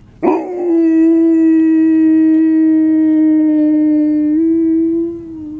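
Young husky howling: one long, steady howl that starts abruptly, steps up slightly in pitch about four seconds in, and fades near the end.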